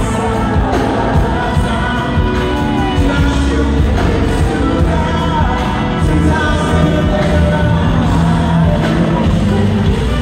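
Live R&B concert music: a male singer sings over the band through the arena's sound system, with a steady beat.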